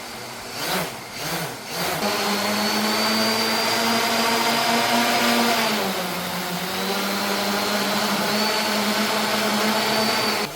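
Brushless motors and propellers of a 3D-printed eight-rotor octocopter running together as a steady whine, coming up to full level about two seconds in. The pitch dips a little near the middle as the throttle changes, and the sound cuts off suddenly at the end.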